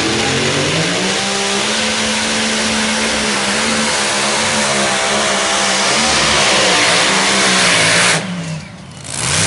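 Modified pulling tractor's supercharged engines running loud at full throttle under the load of the pulling sled, rising in pitch about a second in and then holding steady. The engine sound cuts away sharply about eight seconds in as the pull ends, followed by a brief loud burst just before the end.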